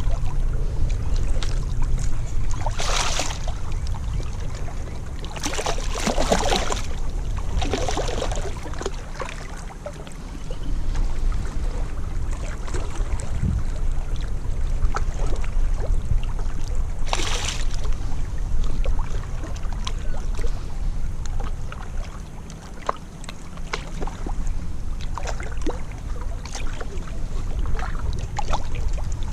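Wind rumbling on the microphone at a surf beach, with a few short louder rushes of noise, like waves washing in.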